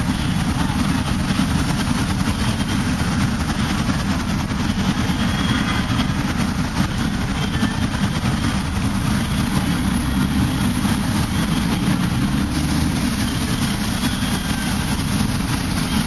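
Steady low rumble of city traffic, an unbroken background drone with an even hiss over it.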